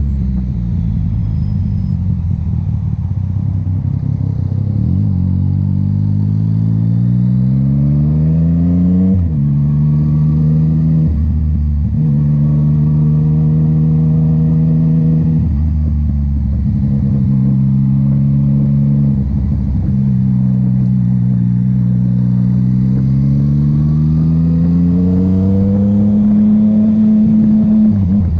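Yamaha MT-09's three-cylinder engine and exhaust under way, revving up and dropping in pitch at each of several gear changes, holding steady revs between them and climbing again near the end.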